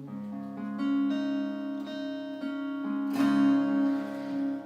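Acoustic guitar playing the closing bars of a country song: single plucked notes ring over one another, then a full strummed chord about three seconds in is left to ring.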